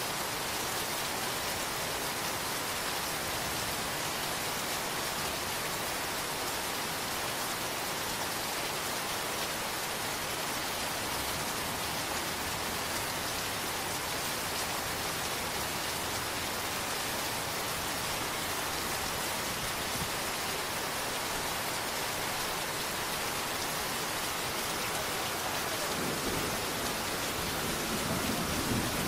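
Rain falling steadily, an even hiss throughout, with a low rumble of thunder building in the last few seconds.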